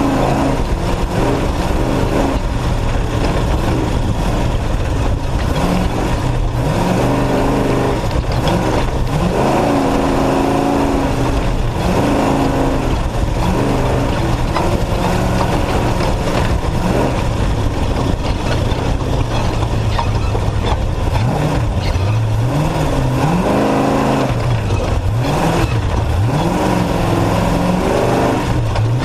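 Off-road race truck's engine running hard at racing speed, its pitch rising and falling again and again as it revs up, shifts and backs off, over a constant loud rush of noise.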